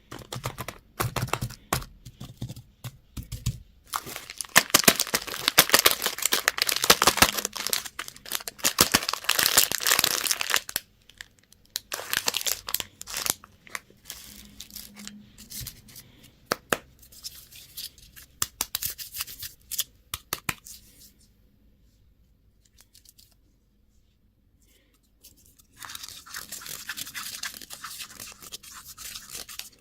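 Plastic candy and toy wrappers being torn open and crinkled: a dense run of crackling for several seconds, then scattered crackles. After a short lull, a steadier rustling starts near the end.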